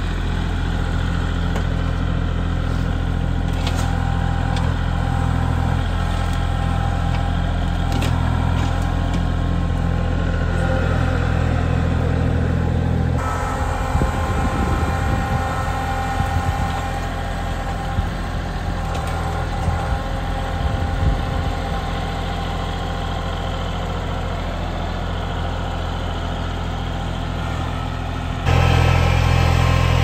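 Kubota L3901 compact tractor's three-cylinder diesel engine running steadily while it works the front-loader grapple. In the middle there are scattered sharp clicks and snaps, and near the end the engine suddenly sounds louder and closer.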